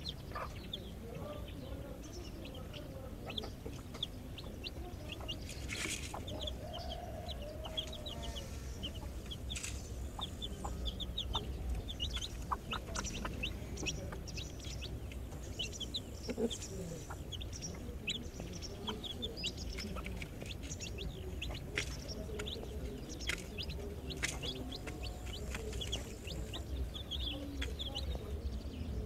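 Young chicks peeping over and over in quick, high cheeps, with a hen's low clucks now and then.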